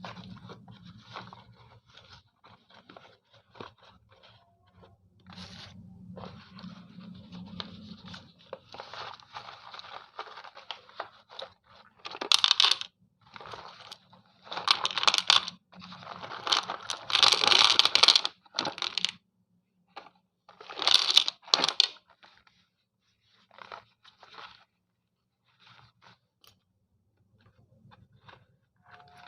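Slate pencils being bitten and crunched between the teeth close to the microphone, with irregular crisp cracks and several longer, louder gritty crunching stretches in the middle.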